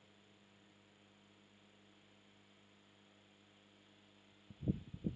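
Faint steady electrical mains hum with light hiss. About four and a half seconds in and again just before the end, two short low sounds come out of it.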